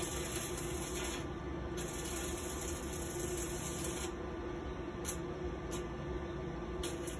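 Electric arc welding on a ride seat's broken steel safety lock: a steady crackling hiss that thins out briefly a few times, over a steady low hum.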